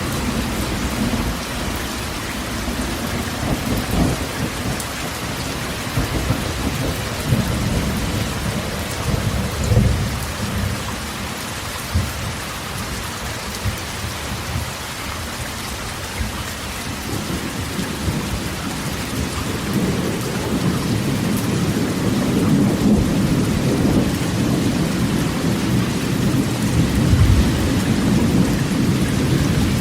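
Heavy rain drumming steadily on a corrugated metal roof, with thunder rumbling low underneath. The rumble grows stronger about halfway through.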